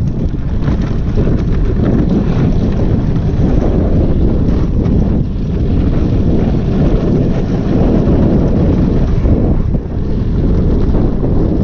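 Wind buffeting the microphone of a bicycle speeding downhill: a loud, steady rumble and hiss.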